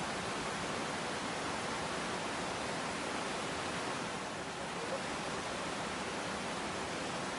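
Steady rush of river water pouring through a dam, an even hiss with no breaks.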